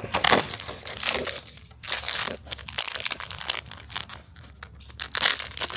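Packaging crinkling and crunching in irregular bursts as a blind-pack toy is unwrapped by hand.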